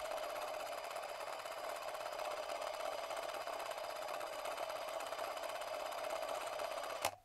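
Steady whirring, machine-like noise, a sound effect for the drawn 'car of tomorrow' as it moves; it cuts off abruptly near the end.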